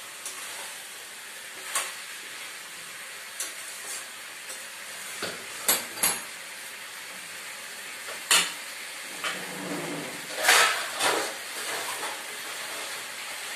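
Raw jackfruit pieces in spice paste sizzling steadily in a steel pan, with a metal spatula stirring and scraping against the pan now and then.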